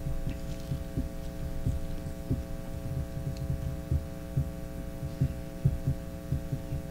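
Steady electrical hum from the church sound system, with irregular soft low thumps.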